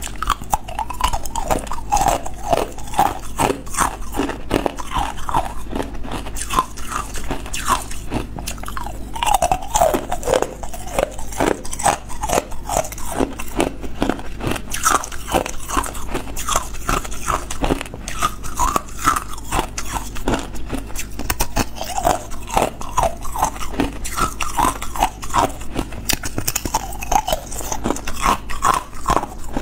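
Hard ice cubes bitten and chewed, a dense unbroken run of sharp crunches and cracking.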